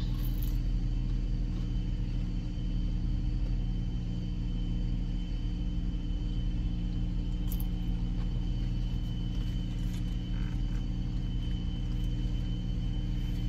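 Car idling, heard from inside the cabin as a steady low hum.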